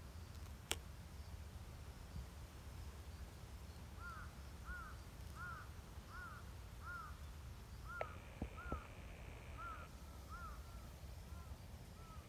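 A bird calling faintly in the woods: a steady series of about a dozen short arched notes, roughly one every 0.7 seconds, starting a few seconds in and fading toward the end. A few sharp clicks come before it and partway through.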